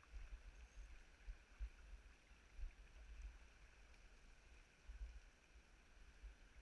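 Near silence: a faint, muffled rush of river current with uneven low rumbling gusts, picked up by a GoPro Hero 3.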